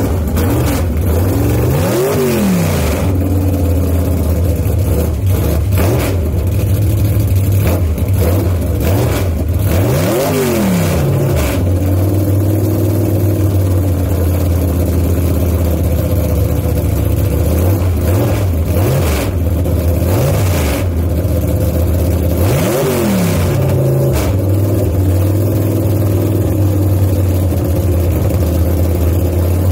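Small-block Chevy V8 drag car engine on Hilborn mechanical fuel injection running loudly at idle. It is blipped three times, each a quick rev up and back down: about two seconds in, about ten seconds in, and near twenty-three seconds.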